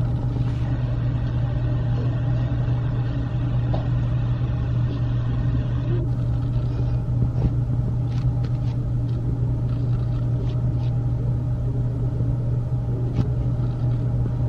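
Steady low rumbling hum, with a few faint light clicks in the second half.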